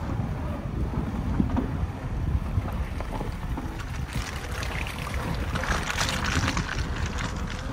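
Suzuki Jimny's tyre rolling over a dirt and gravel track, with wind buffeting the microphone. From about four seconds in, a splashing hiss as the wheel runs through wet mud.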